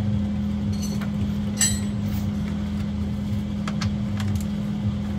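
A wrench clinks sharply against metal a few times at the transmission pan's 14 mm drain plug, the loudest clink about a second and a half in. A steady low hum runs underneath.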